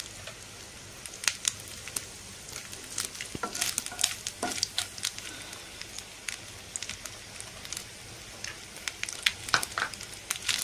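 Small pieces of coconut frying in ghee in a nonstick pan, roasting until they brown. A steady sizzle with sharp pops and crackles scattered through it, as a wooden spatula stirs the pieces.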